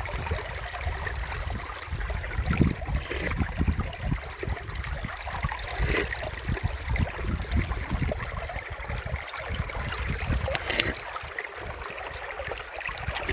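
Flowing river water close by, a steady rush with a heavy low rumble underneath.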